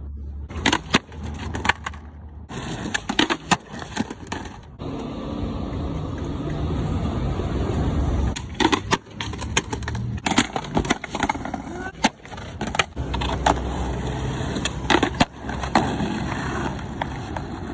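Skateboard wheels rolling on pavement, broken by many sharp clacks of the board popping, landing and slapping the ground, with the sound changing abruptly several times between takes.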